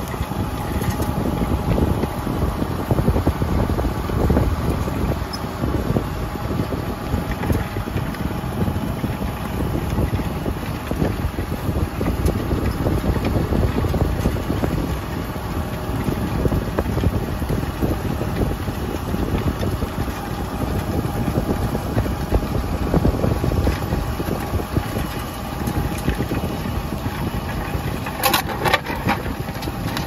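Fendt 720 tractor's six-cylinder diesel engine running steadily under ploughing load as it pulls a reversible plough close past, with a steady whine over the engine. A short clatter of sharp clicks comes near the end.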